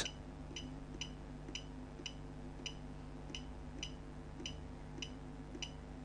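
Ness SmartLiving alarm keypad giving a short, high beep at each press of its down-arrow key, about two a second, as the programming menu is scrolled, over a faint steady hum.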